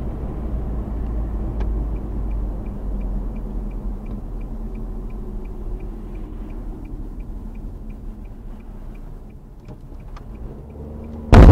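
Inside a 2013 Nissan Juke: steady road and engine rumble that eases as the car slows, with the turn signal ticking about three times a second. Near the end a sudden, very loud crash as the car is rear-ended by a pickup truck.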